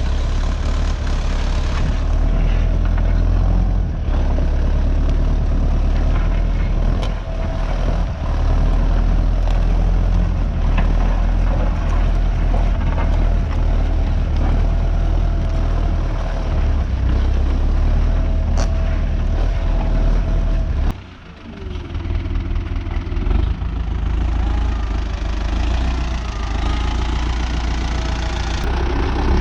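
Tractor engine running steadily while pulling a plough, with a short drop in level about three quarters of the way through.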